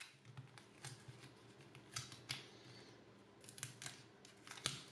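Metal foil tape being peeled off the casing of a 3.5-inch Seagate desktop hard drive, crinkling in a faint, irregular run of small crackles and clicks.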